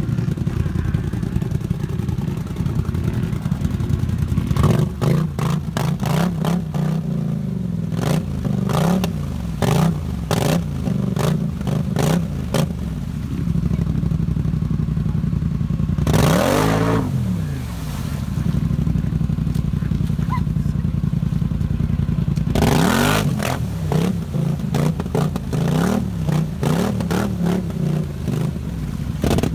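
Off-road vehicle engine running and revved again and again, its pitch swinging up and down in quick succession for several seconds, then two longer, higher revs, about midway and near the end. Sharp clattering knocks come between the revs.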